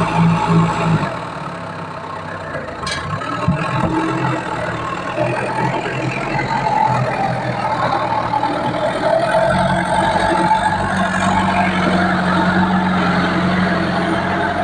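Engine of a log-moving machine running steadily. Its note drops about a second in and picks up again partway through, and a couple of sharp knocks come around three seconds in.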